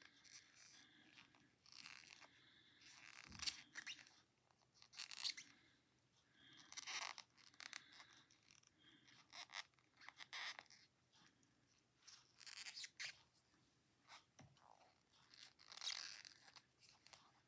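Knitting needles and yarn being worked: faint, repeated scraping and rustling strokes every second or two, with one soft low knock a few seconds in.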